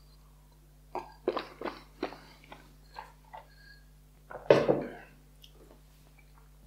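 A person drinking water from a glass: a run of small gulps and swallows, then one louder short sound about four and a half seconds in.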